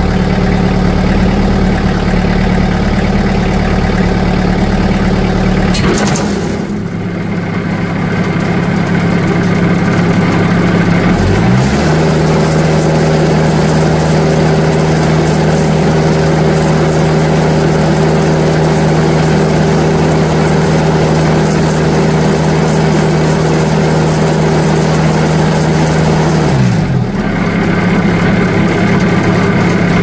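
TimberKing 2020 sawmill's diesel engine running the band blade, still warming up after a cold start in below-freezing weather. The sound shifts suddenly about six seconds in; near twelve seconds the engine revs up to high speed and holds there, then drops back down a few seconds before the end.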